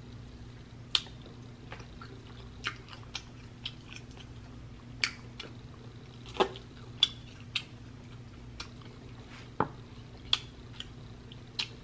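Close-miked mouth sounds of eating sticky barbecue-sauced beef ribs: chewing and sucking sauce off the fingers, with about a dozen sharp wet smacks at irregular intervals, roughly one a second. A faint steady low hum runs underneath.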